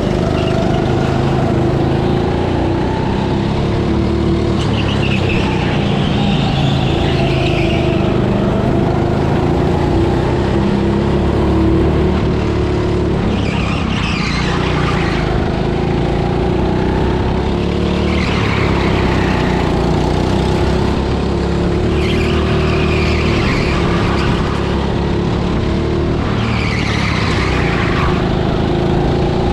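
Onboard sound of a go-kart lapping a track: its motor runs steadily, the pitch dipping and rising again every few seconds through the corners, with short high squeals from the tyres in the turns.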